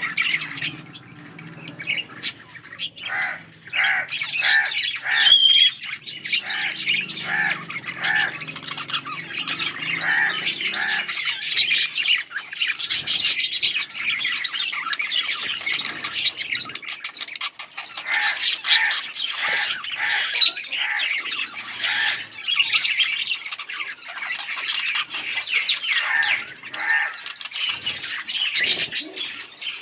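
Budgerigars chirping and chattering without pause: a dense mix of warbles, squawks and short chirps, with runs of quick repeated notes.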